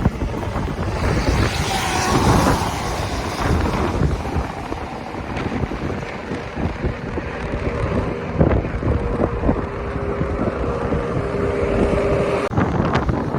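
Wind buffeting the microphone over the running noise of a moving vehicle, with scattered short knocks. About eight seconds in, a steady tone joins in and cuts off suddenly near the end.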